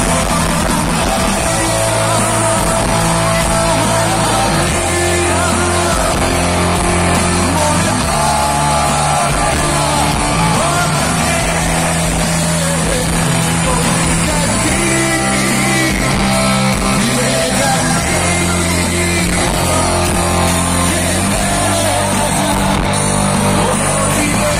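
A rock band playing live, loud, with a singer over guitars, bass and drums, heard from within the crowd.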